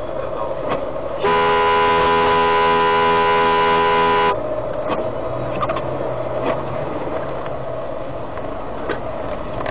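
A car horn sounds one steady blast of about three seconds over continuous engine and road noise.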